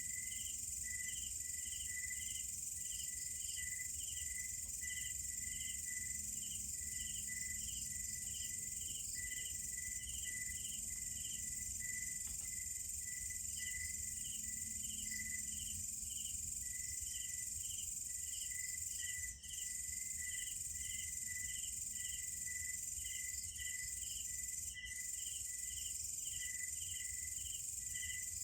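Night insect chorus: a steady high-pitched trill under crickets chirping in a regular pulse, about two chirps a second. The level dips sharply for a moment about two-thirds of the way through.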